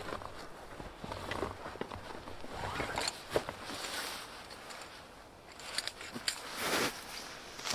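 Irregular rustling, scraping and clicking of camping gear being handled, with a sharp swish about three seconds in and another near the end.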